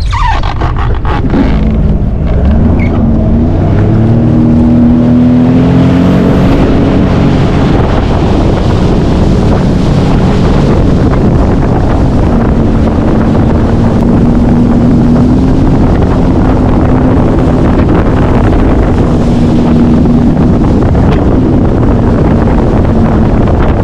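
Jet ski engine revving up over the first few seconds, then running steadily at speed, with heavy wind buffeting the microphone.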